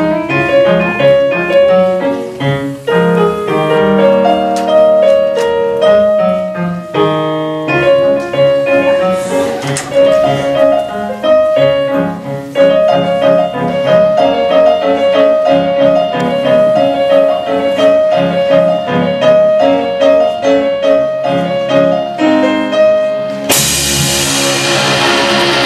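Live rock band playing: a repeating keyboard riff over bass guitar, electric guitar and a drum kit. Near the end cymbals crash in and the band plays fuller.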